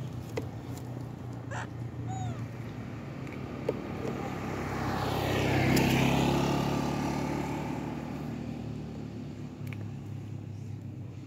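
A road vehicle passes, its noise swelling to its loudest about halfway through and then fading, over a steady low engine hum. A few faint clicks and short chirps sound in between.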